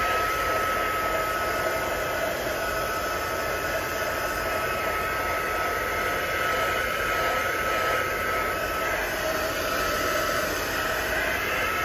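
Small handheld hot-air blower running steadily, a rush of air with a constant high whine from its fan motor, drying wet acrylic paint.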